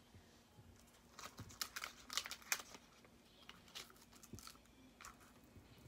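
Faint paper rustling and crinkling in short scattered bursts as a handmade paper cut-out of the sun is pulled off a paper poster and set lower down on it.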